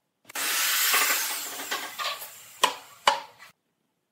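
A tool cutting into wood with one harsh, noisy stroke that fades over about two seconds, followed by two sharp wooden knocks.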